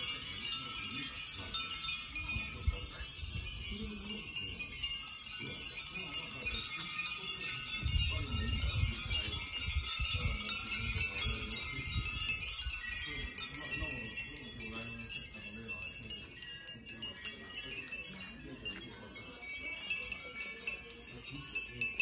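Hundreds of Japanese glass wind bells (fūrin) tinkling together in the breeze: a dense, continuous shimmer of many high rings. Gusts of wind rumble on the microphone underneath, strongest about eight to ten seconds in.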